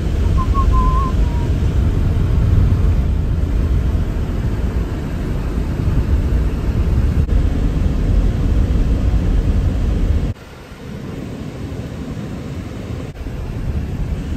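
A car driving, with heavy low rumble from the road and wind on the microphone. About ten seconds in the rumble cuts off suddenly and drops to a quieter, steady drone of driving noise.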